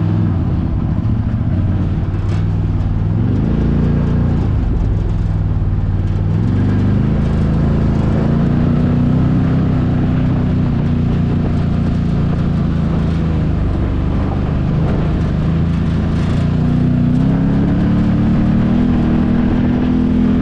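Can-Am Maverick side-by-side's engine running under load off-road, its pitch dipping and climbing several times as the throttle is eased and opened, then holding fairly steady before climbing again near the end.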